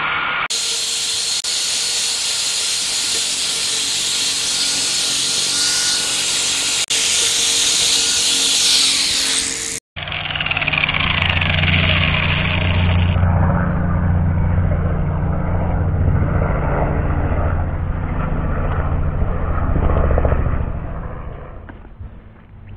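Angle grinder running steadily against the rusted steel body panel behind a Ford Transit's rear wheel arch, grinding the rust back to bare metal, then cutting off abruptly about ten seconds in. A low rumble follows for about ten seconds.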